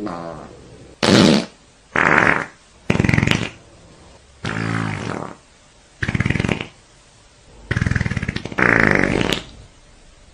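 A string of about eight separate fart sound effects, each half a second to a second long with short pauses between, several with a buzzing rattle.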